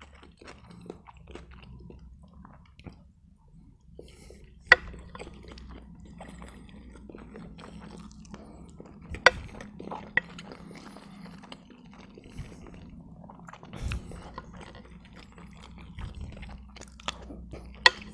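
Chewing and mouth sounds of a man eating macaroni and chicken Kiev close to the microphone, over a steady low hum. A few sharp clicks stand out, the loudest about 5 s in, about 9 s in, and near the end.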